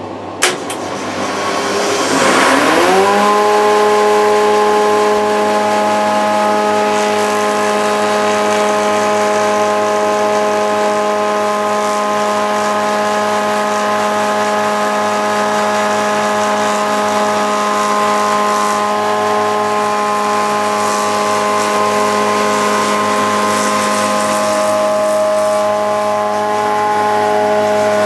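Spindle moulder with a profile cutter block starting up: its pitch rises over about the first three seconds as the spindle comes up to speed, then it runs on with a steady, even whine.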